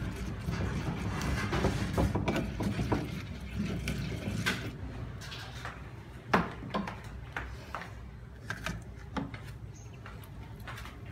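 Pestle grinding chilli sambal in a shallow clay mortar (cobek): quick rasping strokes with knocks for about the first four seconds, then a few scattered sharp knocks.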